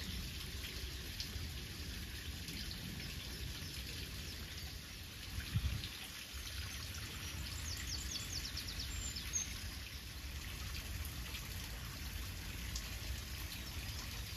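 Light trickling water with wind rumbling on the microphone. A soft low thump about five and a half seconds in, and a brief run of high bird chirps a little after.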